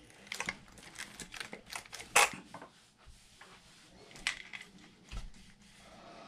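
Hands fitting a rubber RC truck tire and wheel onto its hub: scattered light clicks and knocks of plastic and rubber being handled, with one sharper knock about two seconds in and a dull thump near the end.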